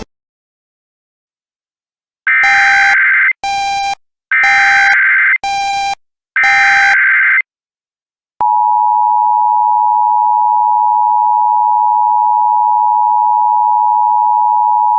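Emergency Alert System transmission: about two seconds in, a string of short screeching digital header bursts, then, a little past halfway, the loud steady two-tone EAS attention signal starts and holds.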